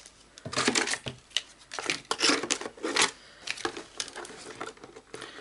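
Cardboard box and plastic-wrapped dies handled by hand while unpacking: rustling and crinkling of packaging with light knocks, coming in irregular bursts.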